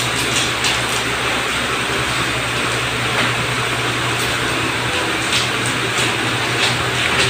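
A steady whirring machine noise with a low hum, like a room fan running, with a few faint short rustles of chart paper being handled.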